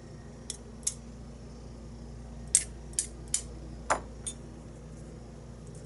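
Small metallic clicks and taps as tiny lock pins, springs and tools are handled and set down while a pin-tumbler lock is taken apart, about seven in all, the loudest about two and a half seconds in.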